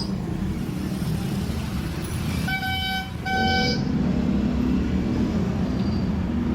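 Street traffic running steadily, with a vehicle horn beeping twice in quick succession about halfway through.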